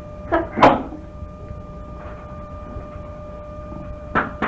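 Room tone of a lecture recording: a steady hum with a faint high whine, a brief sound about half a second in, and two short taps near the end.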